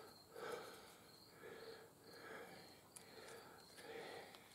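Near silence, with faint soft sounds repeating about every half second in the background.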